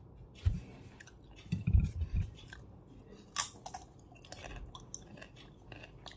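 A person biting and chewing pieces of baked terracotta clay, with a few low thumps early on and then sharp, short crunching crackles.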